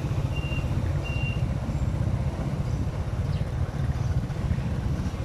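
Motorcycle engine running at road speed with wind and road noise, a steady low rumble. Two short high beeps sound about a second in.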